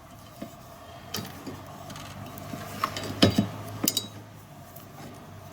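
Scattered plastic-and-metal clicks and knocks from handling a windshield wiper blade on its J-hook wiper arm, with the loudest cluster a little past the middle, over a faint steady hum.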